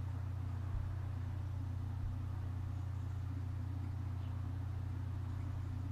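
Steady low hum with a faint hiss behind it, unchanging throughout: background noise from the recording setup, with no other event of note.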